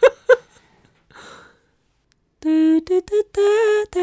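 A woman singing a short improvised vocal phrase, starting about halfway in. The phrase is a few held, syllabled notes stepping upward in pitch.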